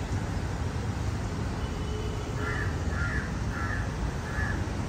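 A crow cawing four times in quick succession, about half a second apart, starting about halfway through, over a steady low rumble.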